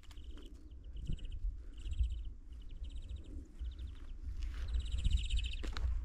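Crickets chirping in short, evenly pulsed bursts, a chirp every half second or so, over a low rumble on the microphone, with a sharp click near the end.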